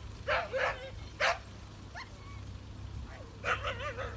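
Hokkaido dog barking: three short barks in the first second and a bit, then a quick run of barks near the end.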